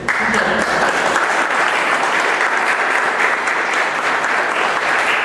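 Audience applauding: dense, steady clapping from many hands that starts suddenly.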